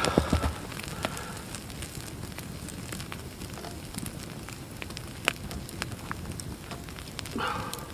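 Wood campfire crackling, with irregular sharp pops over a steady low hiss, and a louder knock right at the start.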